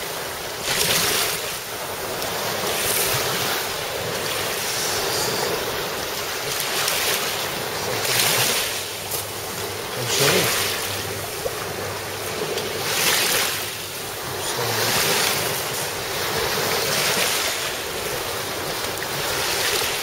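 Small waves breaking and washing on a sea shore, a steady hiss that swells and falls every couple of seconds, with wind blowing on the microphone.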